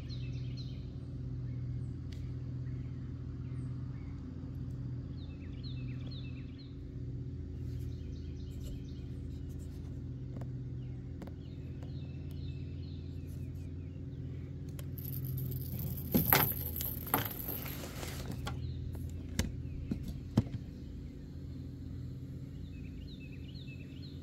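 Outdoor lakeside ambience: a steady low hum with small birds chirping in short bursts every few seconds. About sixteen seconds in comes a loud two-second spell of rustling and crackling, followed by two sharp clicks.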